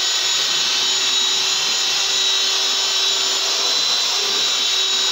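Electric wall-putty sander with a round sanding disc and a dust-extraction vacuum, running steadily against a puttied wall. It gives a constant high whine over a hiss.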